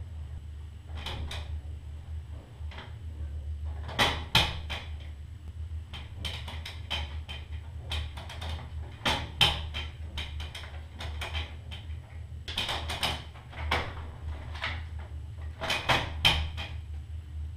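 A plastic cat flap clacking and rattling in its frame as a dog pushes at it from the other side, in repeated clusters of sharp knocks, the loudest about four seconds in and near the end, over a low steady hum.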